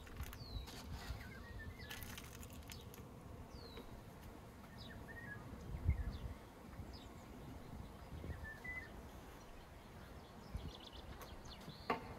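Outdoor ambience: small birds chirping and whistling now and then over a low rumble of wind, with a few light clicks and a dull thump about halfway through and another near the end.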